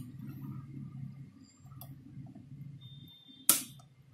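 Supply wire being handled and brought to a CFL bulb's circuit board, giving a few faint clicks and then one sharp, loud click about three and a half seconds in, over a low uneven rumble.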